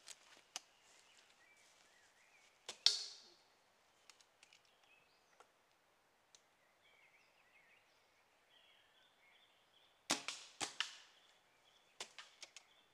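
Air rifles firing: a handful of short, sharp pellet shots, the loudest about three seconds in and a quick group of three around ten seconds, with lighter clicks near the end from handling and reloading the guns. Faint birdsong underneath.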